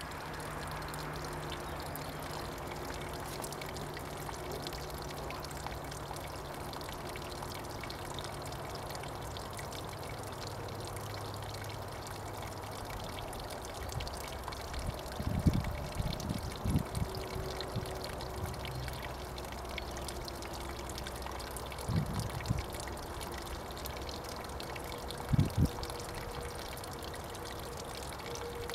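Water pouring steadily from the burst outlet of a plastic water tank and splashing onto the ground. The owner puts the burst tap down to frozen water. A few dull low thumps break in about halfway through and again near the end.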